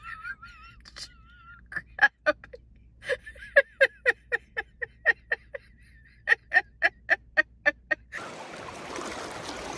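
A woman laughing hard in quick, repeated high-pitched bursts. About eight seconds in, the laughing gives way to the steady rush of stream water.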